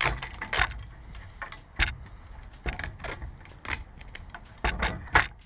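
Duct tape being pulled and peeled off a silicone-coated speargun grip: a string of short, irregular rips and crackles.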